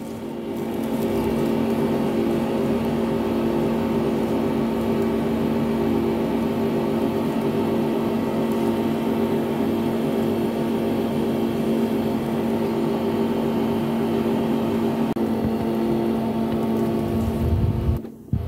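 Rothenberger electric pipe freezer running with a steady mechanical hum while its frosted freezing heads chill a multilayer pipe. The hum dips sharply for a moment near the end.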